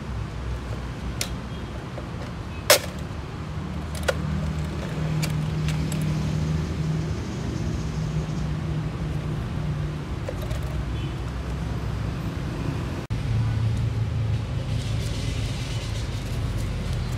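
Steady low rumble of running vehicle engines from road traffic. Over it come three sharp plastic clicks in the first four seconds, the second the loudest, as the fuel pump module's plastic housing is pulled apart by hand, and a clear plastic bag crinkles near the end.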